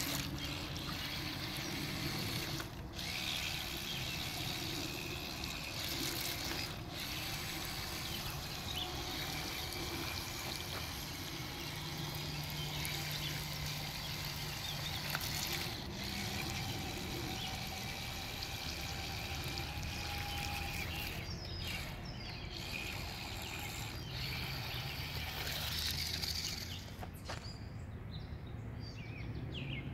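A small toy RC car's wheels churning and splashing through shallow water, a steady watery trickling and sloshing. Near the end the car drives out onto sand and the splashing fades.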